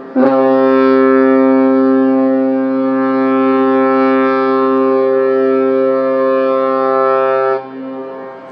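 A large ferry's horn sounds one long, steady blast of about seven seconds and cuts off sharply, a departure signal as the ship leaves port. A fainter steady horn tone continues underneath.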